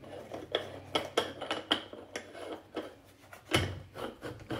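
Upper chamber of an Imusa electric Moka-pot espresso maker being unscrewed from its boiler by hand: a string of irregular light clicks and scrapes from the threads, with a somewhat louder knock about three and a half seconds in.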